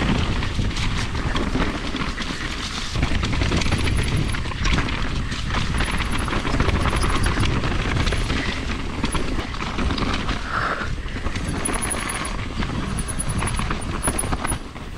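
Mountain bike descending a dirt forest trail, heard from a handlebar-mounted action camera: a continuous rush of tyre noise and wind on the microphone, with the bike rattling and clattering over roots and stones. It eases off just before the end.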